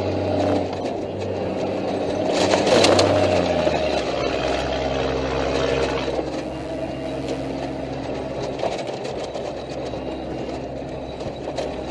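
Armored military patrol vehicle's engine running steadily as it drives, its pitch dropping about four seconds in. A louder rush of noise comes about two to three seconds in.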